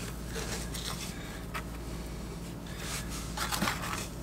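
Hand and trowel rubbing and scraping waterproofing membrane into wet thinset at a shower-wall corner, with a few short scrapes about a second and a half in and again near the end, over a low steady hum.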